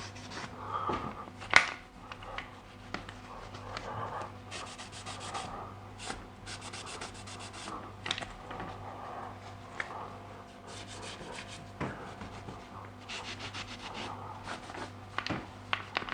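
A damp cloth rubbing over a plastic light switch plate in repeated scratchy strokes with short pauses, wiping off paint residue left after scraping. There is one sharp click about a second and a half in.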